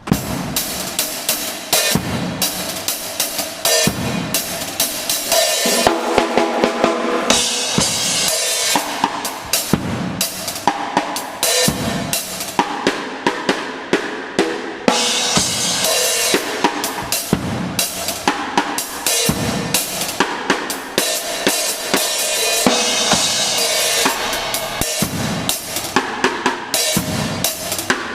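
Drum kit played hard and fast in a continuous groove, with dense bass drum and snare hits under cymbals. The playing starts suddenly at the opening.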